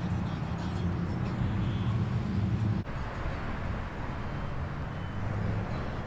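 Steady urban road-traffic rumble with a low engine hum, dipping briefly about three seconds in.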